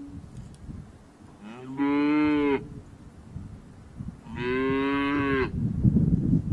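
Young calf bawling twice, two long calls a couple of seconds apart, which may be the calf calling for its mother after losing sight of her. A loud low rumbling noise follows near the end.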